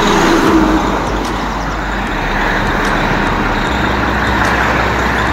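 Heavy truck passing close by: its engine note fades within the first second into a steady rush of tyre and road traffic noise.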